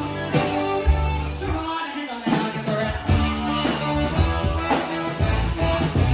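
Live rock band playing: electric bass, electric guitar and drums, with singing.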